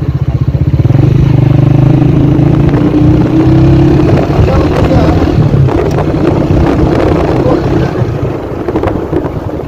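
Car engine running under way with road and wind noise. Its note rises between about one and four seconds in as the car speeds up.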